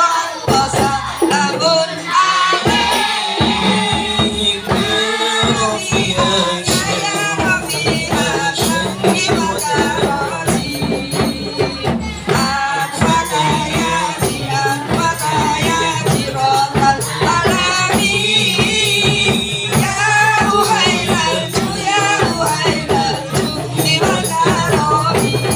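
Hadrah ensemble performing sholawat: voices sing Arabic praise of the Prophet over rebana frame drums with jingles and a large drum, all beating a steady, busy rhythm.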